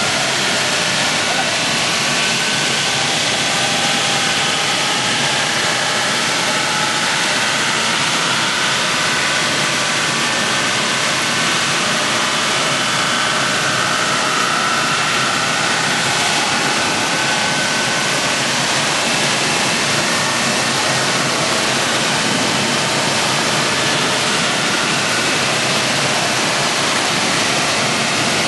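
Wood chipper running, a steady loud machine noise with a faint wavering whine over it and no breaks.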